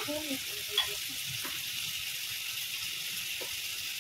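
Shallots, tomato and curry leaves frying in oil in a steel pot: a steady sizzle, with a light tap about a second in.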